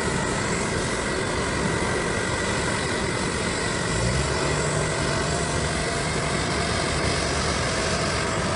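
Aircraft engines running steadily on an airport apron: a constant whine over a dense rushing noise, with a lower hum joining about four seconds in.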